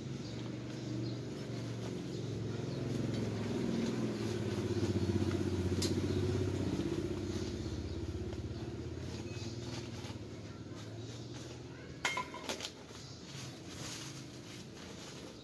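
A motor vehicle engine going past: a low hum that swells to its loudest about five seconds in and fades away over the following several seconds. A few sharp clicks follow about twelve seconds in.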